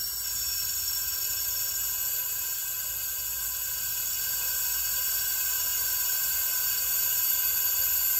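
Compressed air hissing steadily as a shop-air line pressurises a turbo intake system through a homemade boost leak tester, with air escaping at the leaks. It gets slightly louder near the end.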